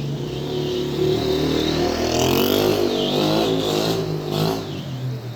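A motor vehicle's engine going by, its pitch wavering and rising, growing louder to a peak midway and then fading.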